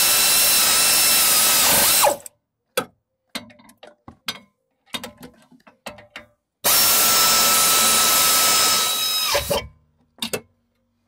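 Clarke power ratchet spinning a rear brake caliper bolt in two bursts of about three seconds each, a steady whine over a hiss. Between the bursts come light clicks and taps of the socket and tool.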